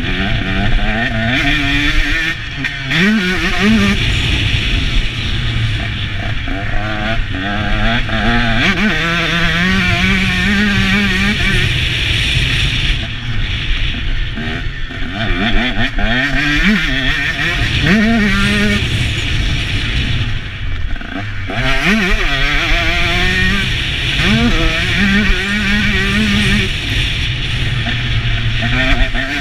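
Motocross bike engine, heard from the rider's own on-bike camera, revving up and down over and over as the throttle opens and closes through the corners and straights, with wind and track noise underneath.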